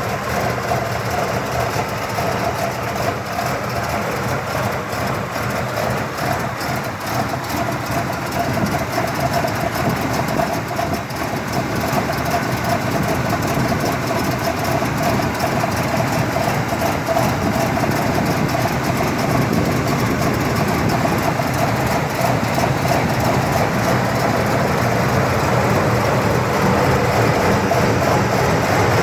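1979 Cadillac Coupe DeVille V8 idling on a cold start, the lumpy, rough idle the car has only when it is good and cold, before it warms up and smooths out.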